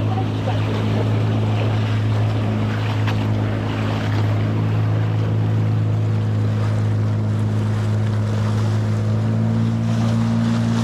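A small boat's motor running steadily at cruising speed, with water rushing and splashing along the hull. The engine's pitch edges up slightly near the end.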